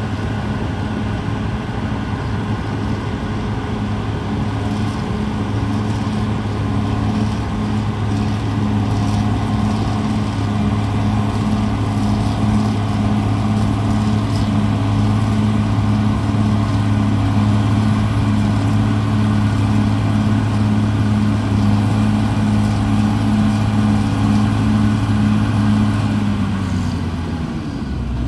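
Caterpillar D6R XL bulldozer's diesel engine running steadily under working load. The revs ease off and the pitch slides down near the end.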